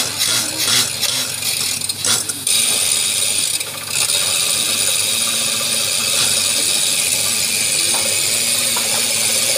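Borewell drilling rig working: irregular knocks and rattles for the first couple of seconds, then a steady loud hissing noise from about two and a half seconds in.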